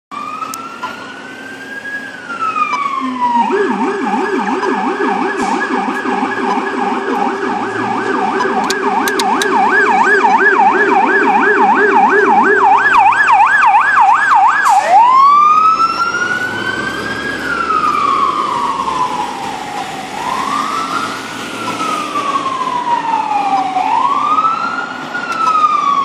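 Fire engine siren switching modes. It starts as a slow wail rising and falling, and a few seconds in changes to a fast yelp. A deep low-pitched yelp runs under the high one, which the uploader takes for one of the new 'vibrating' type sirens. The low yelp stops about halfway through, and soon after the siren goes back to slow rising and falling sweeps.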